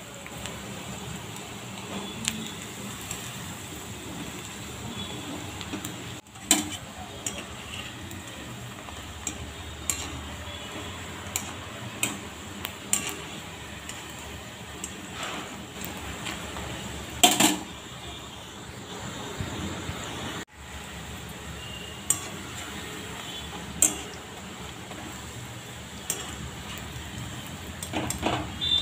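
Sago pakodis sizzling as they deep-fry in hot oil in a metal kadai. A wire skimmer clinks and scrapes against the pan now and then as the pakodis are turned and gathered, with one sharper clank a little past the middle.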